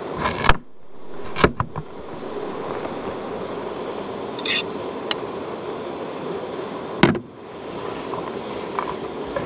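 A large knife chopping carrot on a wooden cutting board: a sharp chop at the start, two lighter chops about a second later, and another hard knock on the board about seven seconds in, over a steady hiss.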